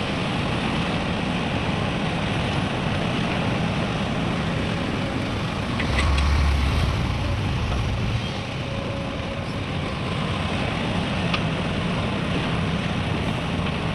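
Heavy diesel engines running steadily, with road-traffic noise, and a louder low surge about six seconds in.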